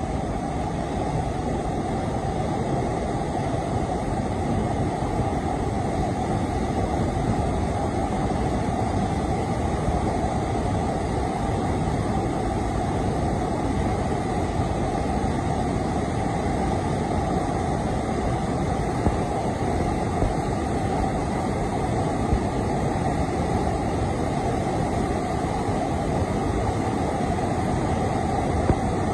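Waterfall's steady roar of falling water, a dense even rush heaviest in the low range.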